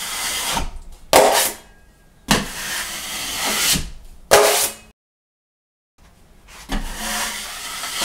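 12-inch steel drywall taping knife scraping across wet joint compound on drywall, long rasping strokes thinning out and feathering the final coat over a patch, with short sharper scrapes between them. The sound drops out completely for about a second midway.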